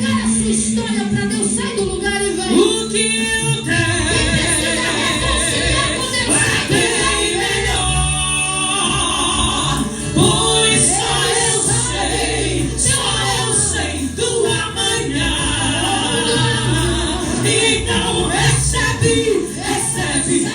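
Gospel worship song: several voices singing over musical accompaniment.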